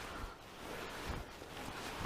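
Wind gusting against the microphone on open ice: a steady hiss with a few irregular low thumps.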